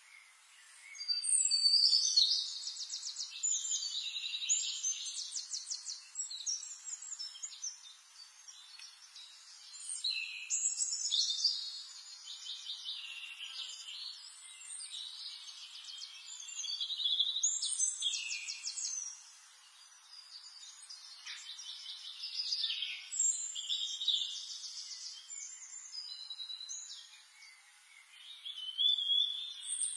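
Birds singing: bursts of chirps and fast trills, one phrase after another, every few seconds.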